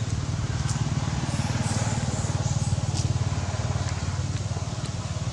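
An engine running steadily, a low even rumble with a fast regular pulse, with a few faint ticks over it.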